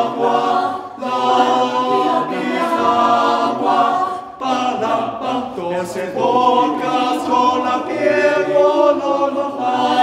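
Mixed choir of women's and men's voices singing a cappella in harmony, with two brief breaks in the sound, about a second in and just past four seconds.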